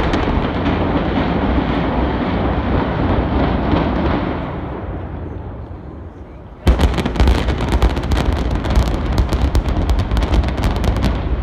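Demolition charges of a building implosion firing in a rapid string, dozens of sharp cracks over about four seconds over a heavy low rumble, starting about two-thirds of the way in. Before them, a steady rushing noise that slowly fades.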